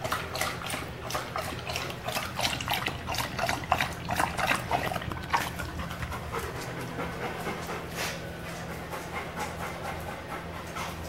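A chocolate Labrador lapping water quickly from a plastic bowl, then panting hard once it stops drinking about halfway through. The panting is from being tired after hard exercise.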